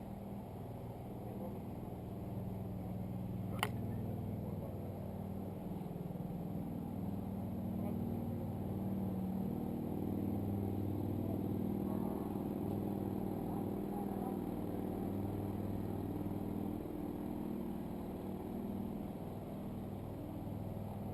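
A vehicle engine running steadily with an even low hum, with one sharp click about three and a half seconds in.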